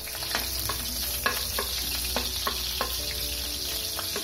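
Sliced onion sizzling in hot cooking oil in a wok-style pan, with a spatula scraping and knocking against the pan about three times a second as it is stirred.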